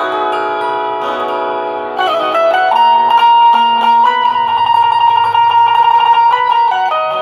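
Bulbul tarang (Indian banjo, a keyed string zither) being played: ringing chords, then from about two seconds in a louder passage with one high note sustained by rapid repeated plucking, moving to other notes near the end.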